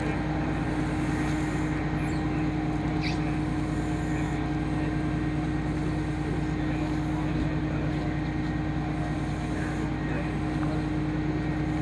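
An engine running steadily at a constant speed, a low even drone that does not change.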